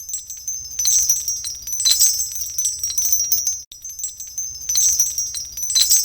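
Intro music of high, tinkling chimes like wind chimes, a short phrase that stops about four seconds in and starts over.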